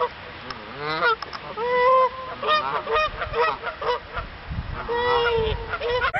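Canada geese honking, a quick run of short, repeated honks, some rising and falling in pitch.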